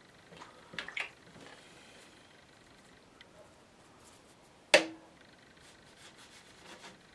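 Faint brush rubbing on watercolour paper, with a cluster of small scrapes and taps about a second in and one sharp knock with a brief ring about halfway through, as the paint tray is handled and set down.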